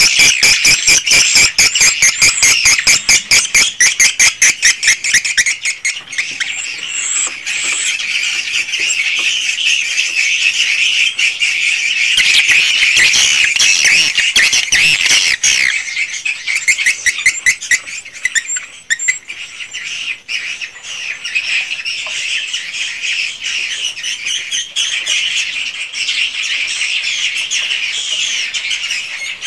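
A colony of edible-nest swiftlets calling inside a swiftlet house: dense chittering twitters throughout. Rapid trains of clicks dominate the first five seconds or so, the clicks these birds use to echolocate in the dark.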